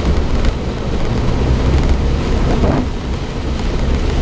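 Suzuki Jimny driving slowly along a waterlogged grass lane, heard from inside the cabin. A steady low engine and tyre rumble runs under the hiss of rain on the body.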